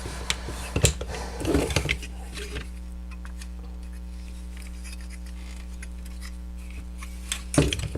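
Plastic parts of a transforming-robot action figure clicking and knocking as it is handled, several clicks in the first two seconds and again near the end, over a steady low hum.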